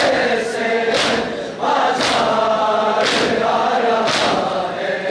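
Men's voices chanting a noha together while the crowd performs matam, beating their chests in unison with a sharp slap about once a second.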